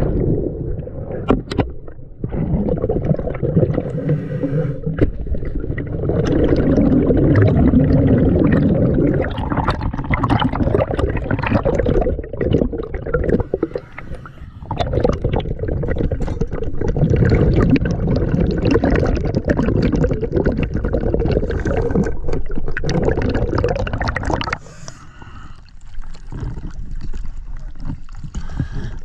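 Underwater water noise of bubbles and churning water after a jump into the sea, in long gurgling stretches of several seconds with short lulls. Near the end it turns quieter and lighter as the microphone comes back to the surface.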